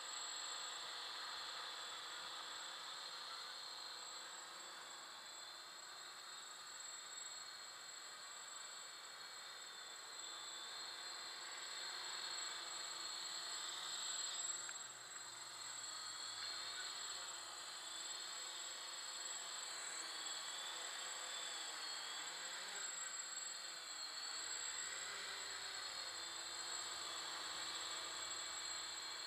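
Multirotor drone's electric motors and propellers buzzing steadily as it flies and hovers low, the pitch wavering up and down with throttle changes.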